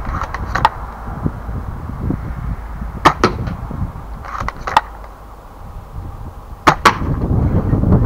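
A Novritsch SSG24 spring-powered airsoft bolt-action sniper rifle fitted with an airbrake, fired twice, about three seconds in and near seven seconds. Each shot is a pair of sharp cracks close together. Lighter clicks of the bolt being cycled fall near the start and about halfway.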